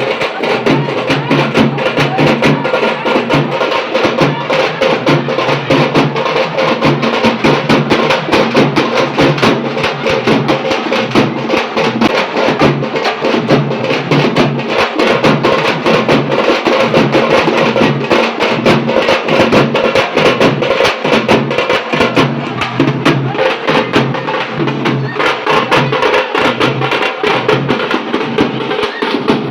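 Music driven by fast, dense drumming, the beats packed closely and running steadily.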